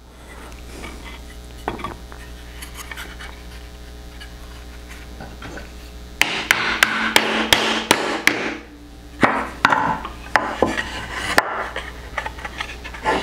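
Claw hammer driving small nails into the end of a wooden toy toolbox: a run of sharp taps about two a second, then a few more spaced strikes. The first half holds only a low steady hum.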